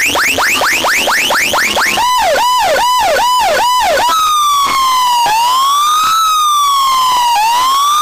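Loud electronic siren sound effect played over a big DJ sound system. It starts with fast rising whoops, about five a second, switches about two seconds in to a quicker up-and-down yelp, and about four seconds in to a slow rising and falling wail.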